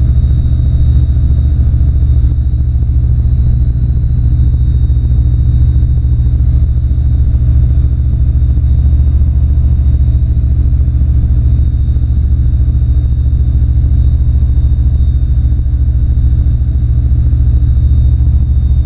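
Single-engine light aircraft's piston engine and propeller droning steadily in flight, heard from inside the cockpit.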